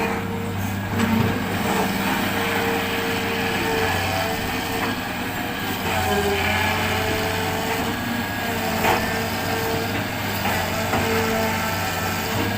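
Hitachi excavator's diesel engine running steadily at working revs while it loads sand, with a couple of short knocks.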